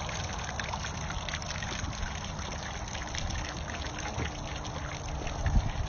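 Small splashes and trickling water at the surface beside a wooden dock as a hooked bass thrashes, with a low thump near the end.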